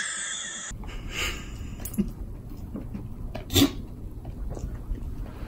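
A small dog scuffling with a stuffed toy against a fabric pet bed, with a few short, sharp sounds, the loudest about three and a half seconds in.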